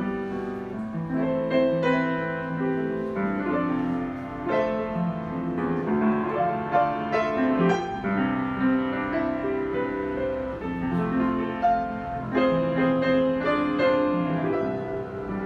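Yamaha YU3 upright piano being played: a continuous flowing passage of melody over chords, with notes struck in quick succession.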